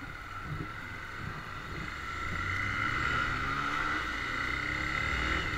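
Honda CBX 250 Twister's single-cylinder four-stroke engine running under the rider, revs rising as the bike picks up speed from about two seconds in.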